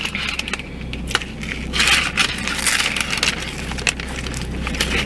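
Close-up chewing of a crunchy hard-shell taco, the shell cracking and crunching in a rapid run of crisp clicks.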